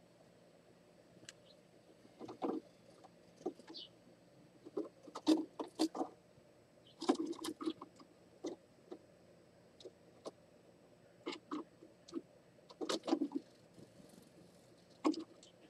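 Irregular soft clicks and taps close to the microphone, one or two a second, over a faint steady hum.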